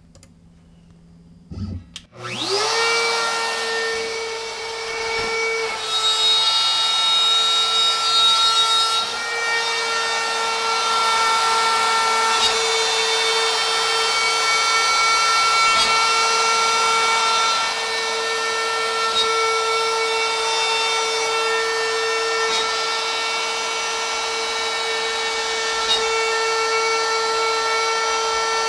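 Shapeoko CNC's router switched on about two seconds in, spinning up quickly to a steady high whine, then running steadily as its 1/4-inch straight flute bit carves a pocket in poplar.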